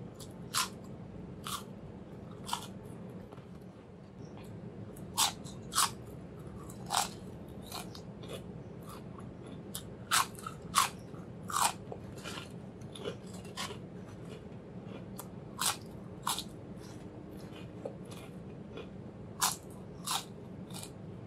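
Ridged and plain potato chips crunching sharply as they are bitten and chewed, in irregular crunches every second or so over a steady low background hum.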